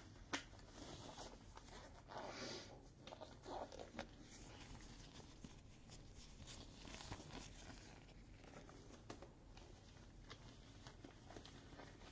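Near silence: room tone with a few faint clicks and soft rustles scattered through it.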